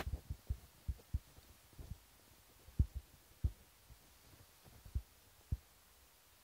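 Soft, irregular low thumps, about a dozen, coming thick at first and then further apart: handling noise from a handheld phone's microphone.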